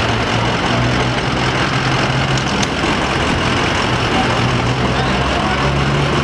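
Ford box ambulance idling, a steady low engine hum, with city street traffic noise around it.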